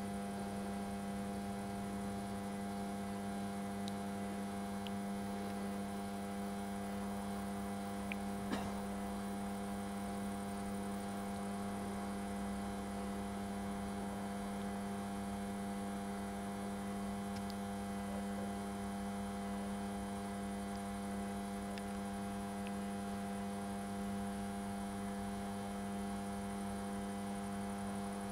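Steady electrical hum on one low pitch with several overtones, unchanging throughout, with a faint click about eight and a half seconds in.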